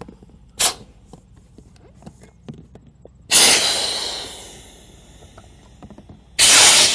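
A click, then two sudden rushes of air hissing out of the inflatable kayak's recessed valves as the valve stems are pushed down to deflate it. The first starts about three seconds in and tapers off over a second or two; the second starts near the end.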